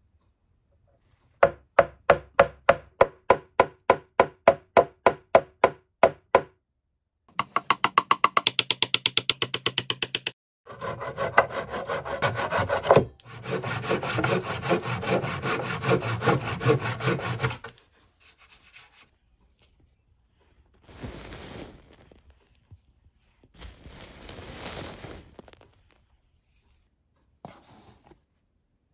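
Wood being worked by hand with back-and-forth strokes: first a run of even strokes about three a second, then a faster run, then about seven seconds of continuous rasping. A few short, quieter scrapes follow.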